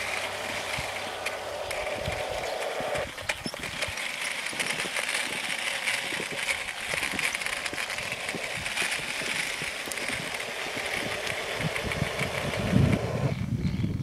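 G scale model diesel locomotives (GP-9 and F3) running along outdoor track, plowing through snow: a steady motor and running-gear noise with many small clicks. The steady band of sound cuts off suddenly shortly before the end.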